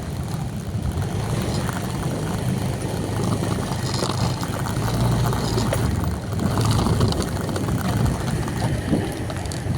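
Steady low rumble of a running vehicle engine, with noise from moving air on the microphone.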